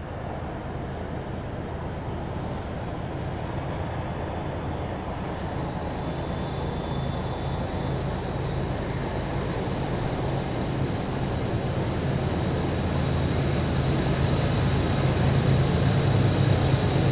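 Several CSX diesel-electric freight locomotives working hard up a small grade as they approach, their engines a deep growl that grows steadily louder. A thin high whine joins in about six seconds in.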